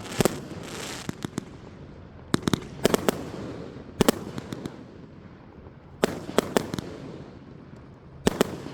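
A 30-shot consumer fireworks cake firing: sharp bangs in clusters every second or two, each trailed by fading crackle.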